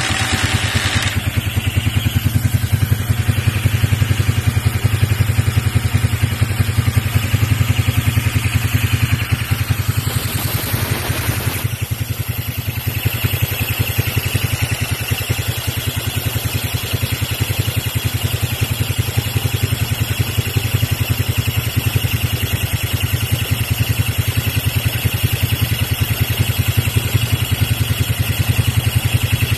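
Yamaha Virago's air-cooled V-twin engine running steadily on a single carburettor fed through a 3D-printed adapter manifold. It runs well.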